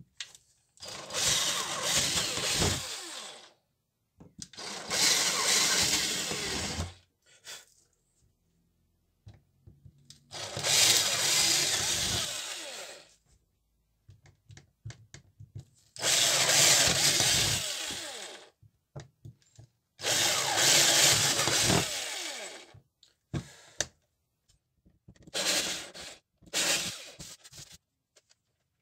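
Handheld power drill with a small bit drilling holes through a model-railway point and the plywood baseboard under it. It comes in five runs of two to three seconds each with short pauses between, then two shorter runs near the end.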